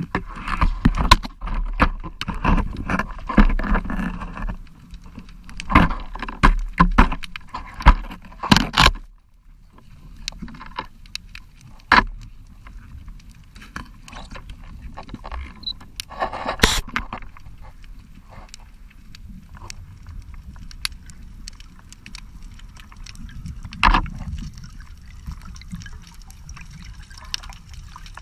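Muffled underwater knocks, clicks and scrapes picked up by a camera mounted on a speargun. They come thick and loud for the first nine seconds, then thin out to a few sharp single clicks. Near the end a fizzing of rising bubbles comes in.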